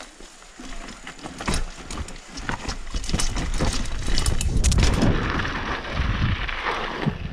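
Full-suspension downhill mountain bike rattling over rough dirt and rocks at speed, with many sharp knocks and clatters from the bike, over a low rumble that builds from about three seconds in.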